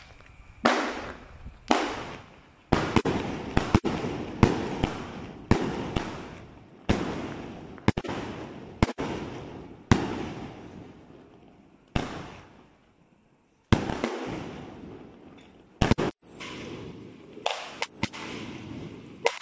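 A 1.5-inch, 88-shot consumer fireworks cake firing: sharp bangs about once a second, each trailing off over about a second, with one short lull about two-thirds of the way through.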